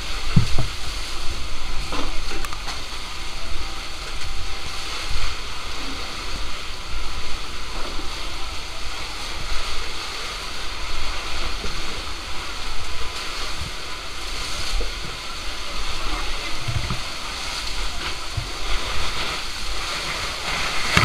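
Water from a fire hose spraying and splashing onto charred debris, a steady rushing hiss with splatter and a few knocks, as the burned remains are cooled down.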